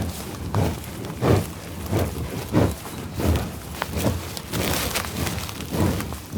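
Buffalo making a series of short, low sounds, about one or two a second, with a breathy hiss a little before the end.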